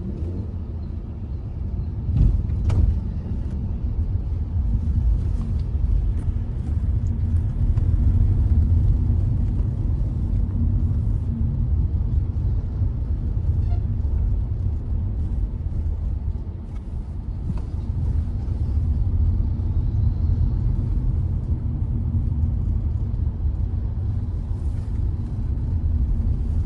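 Hyundai i20 driving along: a steady low rumble of engine and road noise, with two sharp knocks about two and three seconds in.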